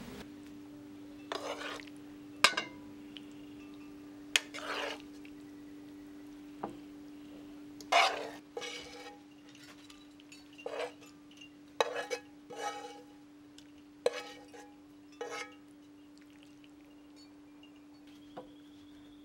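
Fork clinking and scraping against a terracotta bowl, in a series of short, separate strokes, as cooked peppers in sauce are stirred. A steady low hum runs underneath.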